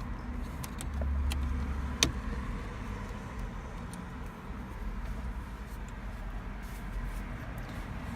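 Plastic steering-column trim being pried with a flathead screwdriver: small clicks and rattles, with one sharp snap about two seconds in, over a steady low rumble.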